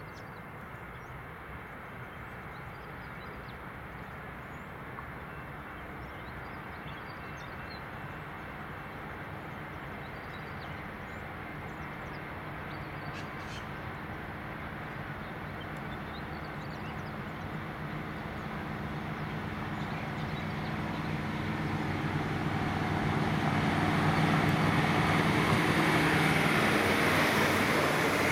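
Diesel train engine running, its drone building steadily louder for about 24 seconds and then holding. Faint bird calls sound over it in the first half.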